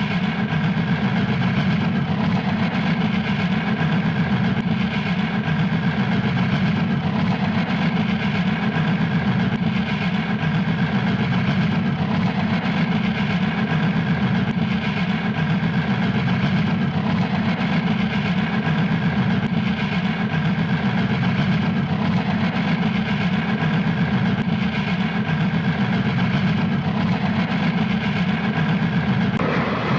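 Steam locomotive puffing fast and steadily, a rapid continuous chuffing from its exhaust.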